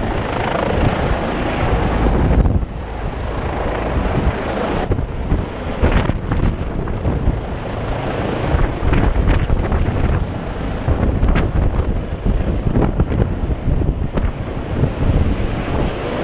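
Rescue helicopter hovering overhead during a hoist rescue, its rotor downwash buffeting the microphone with heavy, gusting wind noise and a faint steady high whine above it.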